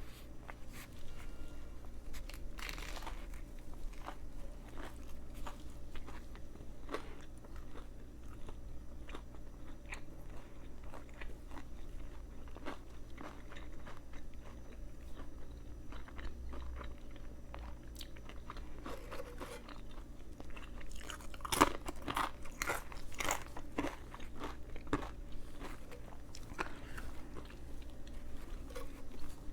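A person chewing and biting into a Subway veggie patty footlong sandwich close to the microphone, with crunching bites throughout. There is a louder run of crunches about two-thirds of the way through.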